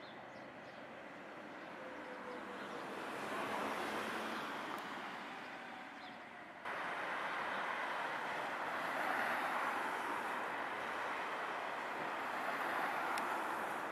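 Tatra T4D tram running along street track, a steady rail-vehicle noise with a faint whine falling in pitch in the first couple of seconds. The sound swells and fades, then jumps abruptly louder about halfway through and stays steady.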